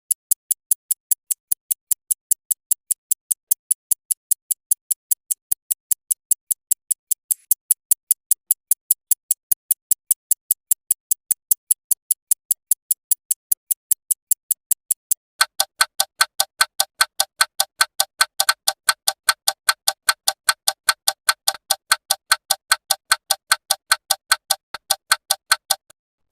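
Clock ticking: sharp, even, high-pitched ticks, about four a second. About fifteen seconds in the tick changes to a fuller, lower-pitched tick at the same pace.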